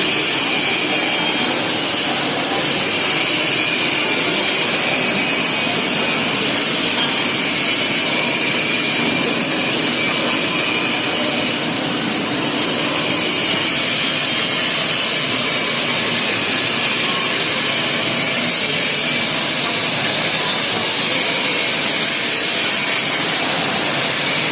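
Shielded metal arc (stick) welding arc crackling and sizzling steadily as the electrode burns, with a slight brief drop in level about halfway through.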